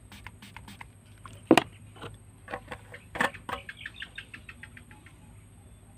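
Small hand spray bottle squirted several times into the chamber of a homemade marble gun, priming it for firing, then the threaded cap turned on with a run of quick plastic clicks that fade out near the end.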